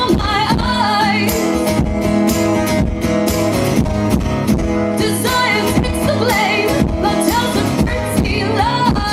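Live pop-folk song played on guitar, with singing over it.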